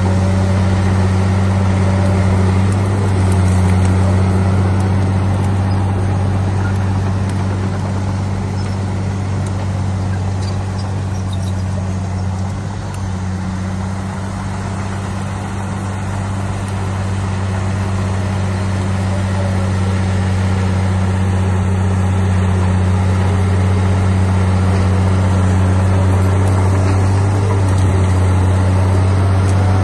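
Heavy diesel engine of a bulldozer running steadily at work, a deep even drone that eases a little around the middle and then picks back up.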